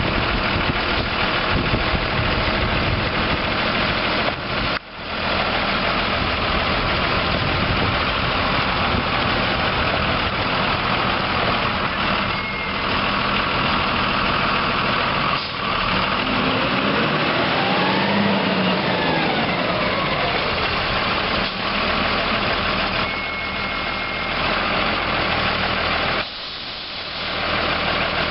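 Cummins ISB six-cylinder diesel engine of a Gradall G3WD wheeled excavator running steadily, its pitch rising and falling once past the middle. The sound dips briefly twice.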